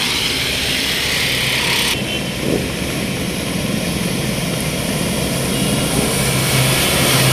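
Steady noise of traffic moving through a flooded road. A truck's engine hum grows loud near the end as it passes close by.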